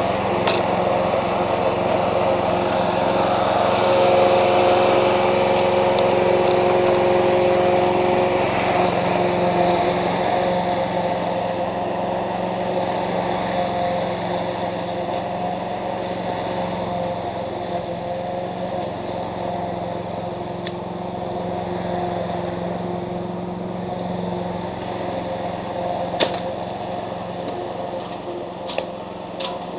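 Petrol walk-behind rotary lawn mower engine running steadily, easing somewhat quieter over the stretch, with a few sharp clicks near the end.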